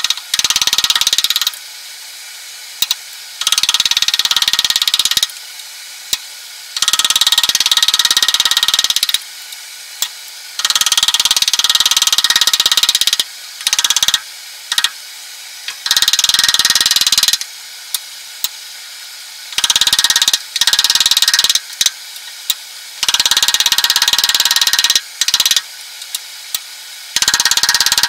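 Carving gouge pushed by hand along cherry wood, cutting flutes into a citrus reamer: a scratchy scraping cut made of rapid fine ticks, in strokes of about two seconds, roughly eight of them with short pauses between.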